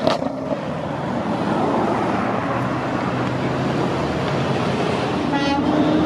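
Cars running and driving past, a steady wash of engine and road noise. About five and a half seconds in, a car horn gives a short toot.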